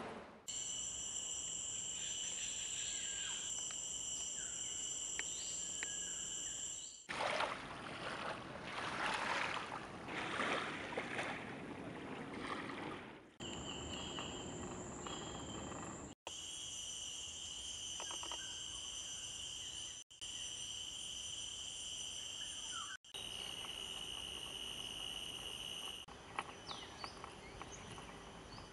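Outdoor nature ambience cut together from several clips: a steady, high-pitched insect chorus that stops and restarts at each cut. For about six seconds from about seven seconds in, it gives way to a louder, uneven rushing noise.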